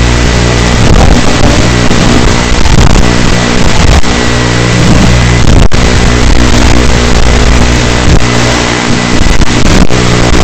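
Motors and propellers of an ET115 2S micro FPV quadcopter whining loud and distorted, their pitch stepping up and down with the throttle. The sound cuts out for an instant about halfway through.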